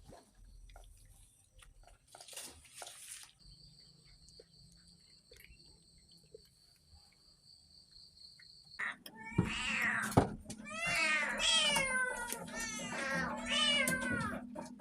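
Several cats meowing, many calls overlapping one after another from about nine seconds in. Before that it is quiet apart from faint clicks and a steady high-pitched whine.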